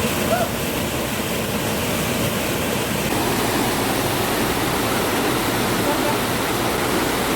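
Steady rush of falling and tumbling water from a hill stream's cascade.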